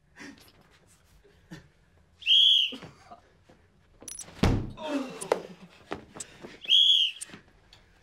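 Referee's whistle blown in two short, steady blasts, about four and a half seconds apart, with a sharp thump between them.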